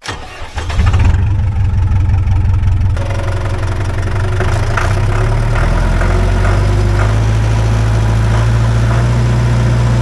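John Deere tractor engine starting: a short crank, catching about a second in, then running steadily.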